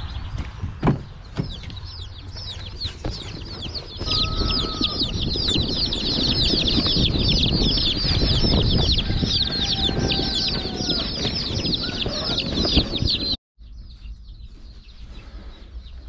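A shipping box of baby chicks peeping: dozens of short, high, falling cheeps overlapping without a break, over a low rumble. The sound cuts out briefly about 13 seconds in and then goes on more faintly.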